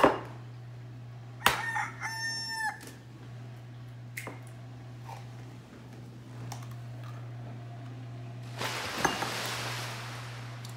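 An egg tapped sharply against the rim of a glass bowl, then a short high-pitched squeal lasting under a second. Near the end, water is poured from a glass measuring cup into the bowl, splashing for about two seconds.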